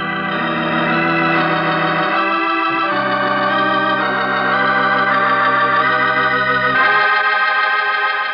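Organ music bridge of sustained, swelling chords. The bass notes drop out briefly about two seconds in, return, and stop near the end, leaving the upper notes to fade.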